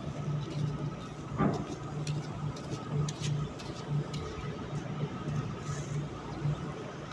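An engine running steadily, a low hum that pulses evenly, with a short louder sound about one and a half seconds in and a few faint clicks.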